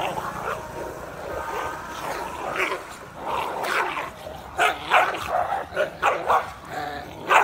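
Street dogs fighting, barking and yelping, with a rapid run of short, loud yelps and barks in the second half.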